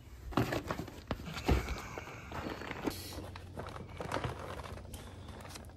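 Irregular knocks, taps and rustling as someone moves about in a boat and handles gear, a little louder about half a second and a second and a half in.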